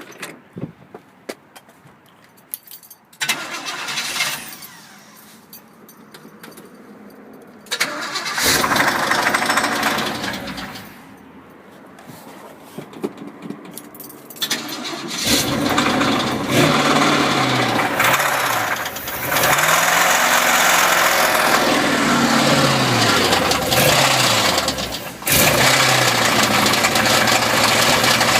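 Old 350 V8 engine being cranked in short tries, then catching about halfway through and running with the revs rising and falling. It runs with a heavy knock from two spun bearings.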